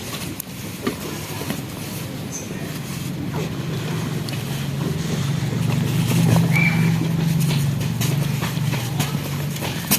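Dry, dusty material crumbling, with scattered small crackling clicks, over a low steady hum that swells through the middle and fades near the end.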